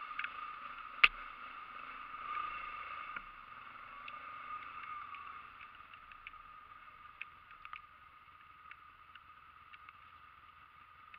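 ATV engine running with a steady drone that grows fainter, with a sharp click about a second in and a few faint ticks later.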